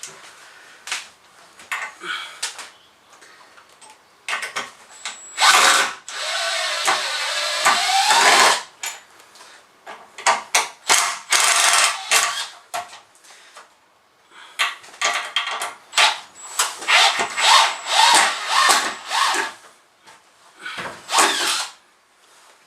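Power drill backing out Robertson screws from a wooden stud in repeated short bursts, with one longer run about six seconds in whose motor pitch dips and then climbs; knocks and clatter from the work between bursts.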